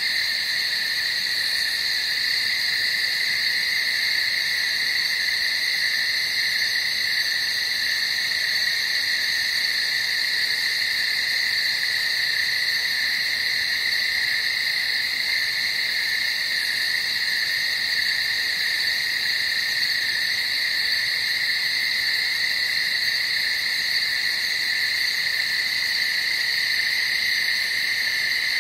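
Dense night-time animal chorus: a continuous, even, high-pitched drone of many calling creatures, with no breaks or changes.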